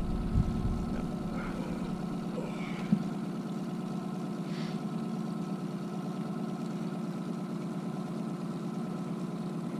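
Boat's outboard motor running steadily at trolling speed, with a single short knock about three seconds in.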